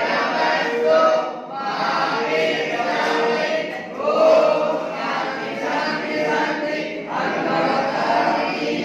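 A group of boys chanting a prayer together in unison, in phrases broken by short pauses every two to three seconds.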